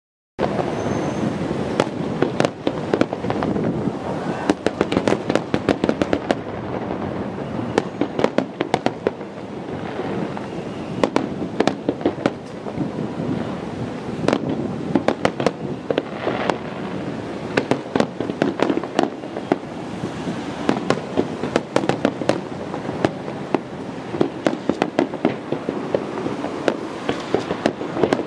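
Aerial fireworks display: a continuous barrage of shell bursts, many sharp bangs a second with crackling, over a constant din.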